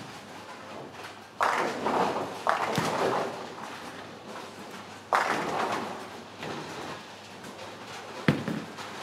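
Bowling pins crashing as balls strike them, three times, about a second and a half, two and a half and five seconds in, each dying away over about a second. A bowling ball thuds onto the lane just after eight seconds.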